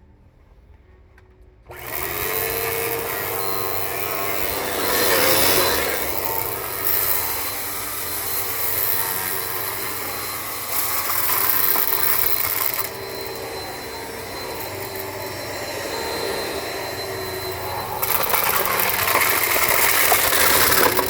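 Eureka Power Speed upright vacuum cleaner switched on about two seconds in and running, a steady motor whine with fan noise that grows louder and softer in swells.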